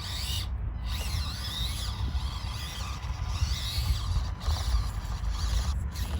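Axial SCX24 Deadbolt micro rock crawler's small electric motor and gearbox whining as it climbs rocks, the pitch rising and falling with the throttle, with a ratchety mechanical chatter and a steady low rumble underneath.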